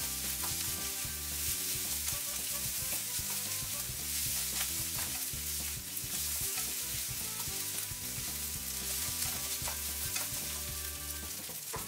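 Fried rice sizzling in a nonstick frying pan while a slotted turner and a wooden spatula cut through and toss it, with scattered light scrapes and taps of the utensils on the pan. This is the finishing stage, the rice lightly cut through to blend rather than stir-fried hard.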